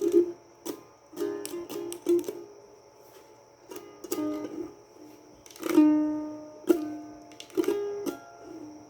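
A small plucked string instrument played in short strummed and picked chords, each ringing out and fading, the longest ringing chord about six seconds in. A faint steady high whine sits underneath throughout.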